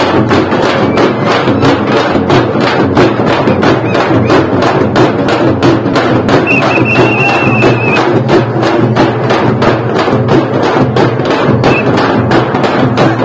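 A group of dappu frame drums, the large round drums of Telangana, beaten with sticks in a fast, steady, driving rhythm.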